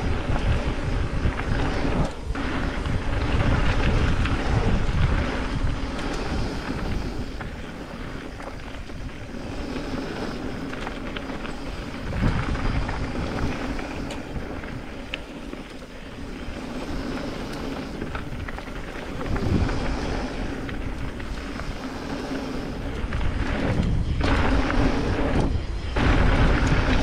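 Mountain bike riding fast down a dirt trail: wind buffets the microphone, and tyres and frame rattle and knock over bumps, the noise swelling and easing with speed.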